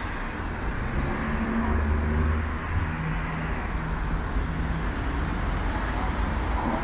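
Street traffic: car engines running close by with a steady low hum and the noise of passing vehicles.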